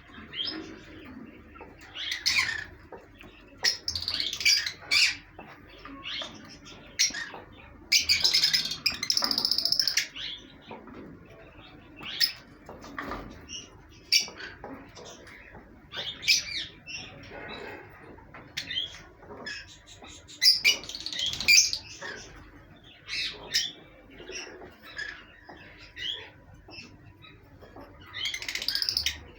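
Pet parrots, green lovebirds among them, chirping and squawking in short, irregular bursts, with a louder, busier stretch of calls about eight to ten seconds in.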